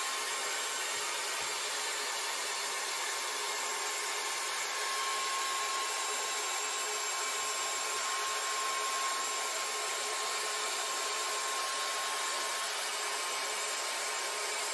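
Small handheld vacuum running steadily, its motor holding one even whine, as dust and dirt are cleared from a concrete wall crack before repair.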